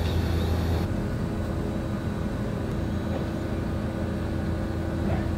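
Wind buffeting the microphone, a steady low rumble, with a faint steady hum running underneath.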